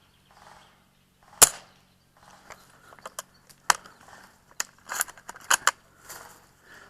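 ARES AW .338 bolt-action spring airsoft sniper rifle fires one sharp shot about a second and a half in. This is followed by a run of uneven metallic clicks and clacks as the bolt and magazine are worked.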